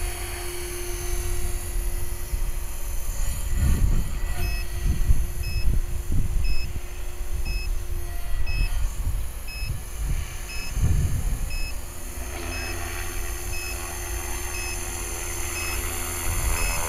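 HK-450BB electric RC helicopter running with a faint steady hum, fuller from about twelve seconds in as it comes down close to land. Wind buffets the microphone. From about four seconds in, a short high beep repeats about once a second.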